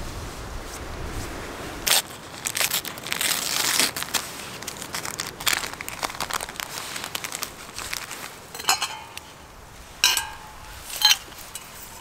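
Paper oatmeal packet crinkling as it is handled and opened, followed by three light metallic clinks with a short ring from a titanium pot and its lid, the last two the loudest.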